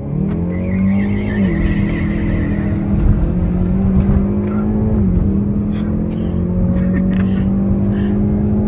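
Hyundai i30N's turbocharged 2.0-litre four-cylinder at a full-throttle drag launch, heard from inside the cabin. The revs shoot up off the line, then two upshifts about one and a half and five seconds in drop the pitch before it climbs again.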